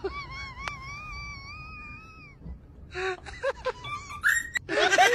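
A kitten's long meow, held for about two seconds, wavering slightly and dropping away at the end. Shorter high calls follow near the end.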